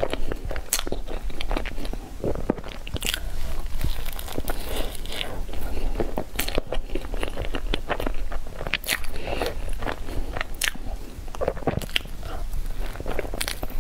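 Close-miked eating sounds of a woman chewing and biting a green cream-filled cake, picked up by a clip-on microphone: irregular wet mouth clicks and smacks throughout, with a fresh bite near the end.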